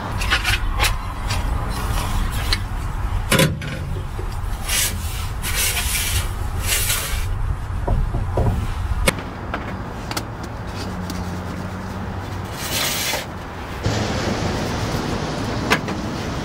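Pots and utensils handled on a stainless steel camp stove: a run of knocks, clinks and scrapes, over a steady low rumble.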